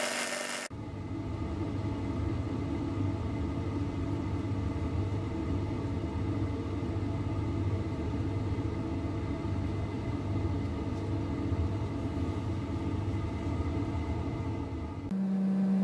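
A belt sander grinding steel cuts off within the first second, followed by a steady low mechanical rumble. Near the end a steady low motor hum sets in.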